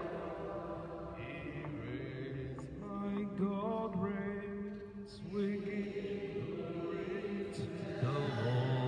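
Slow devotional chant, sung with long held notes that slide in pitch.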